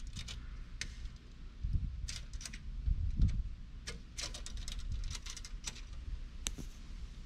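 Scattered light clicks and ticks from a handheld tape measure being held and steadied against a plastic kayak's bow, over a low steady rumble.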